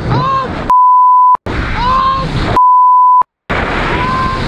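A man yelling over wind rushing on the microphone during a controlled free-fall jump, cut twice by a loud, steady, high beep about half a second long, each followed by a moment of dead silence: a censor bleep laid over his shouting.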